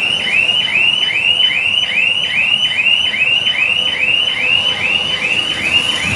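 Warning alarm on a car carrier trailer's hydraulic lift deck, sounding while the upper deck is lowered. It is a loud, evenly repeating high chirp, each one rising then falling, a little over two a second.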